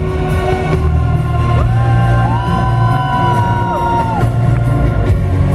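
Loud music with a heavy bass and held notes that slide up about a second and a half in and slide back down about four seconds in.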